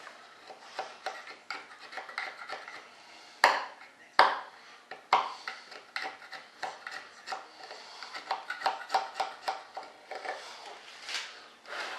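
Hard mold parts and hand tools being handled and scraped: a run of light clicks and scrapes, with two sharp knocks about three and a half and four seconds in.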